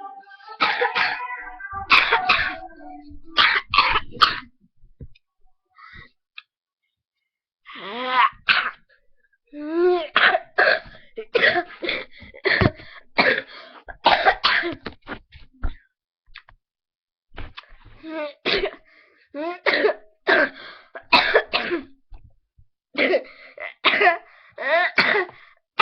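A girl coughing hard in repeated fits of short, rapid coughs, with two brief pauses of a couple of seconds between fits.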